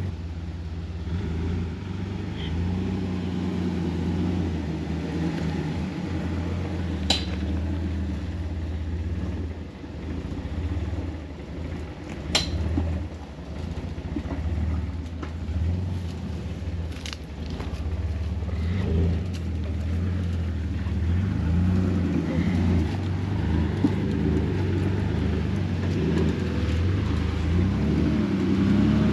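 Jeep Wrangler engine running at low revs while driving an off-road trail, its drone rising and falling, with three sharp knocks spread several seconds apart.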